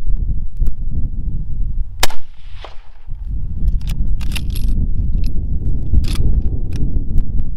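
A BSA 1916 Lee-Enfield SMLE Mk III* .303 rifle fires one shot about two seconds in, the report ringing out for about a second. The bolt is then worked with a run of sharp metallic clicks and scrapes to chamber the next round, over heavy wind noise on the microphone.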